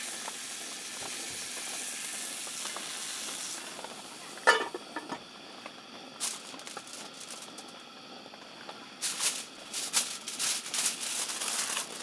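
Roast beef sizzling in a skillet, fading out a few seconds in; a single sharp clank about four and a half seconds in, then aluminium foil crinkling near the end as the meat is wrapped.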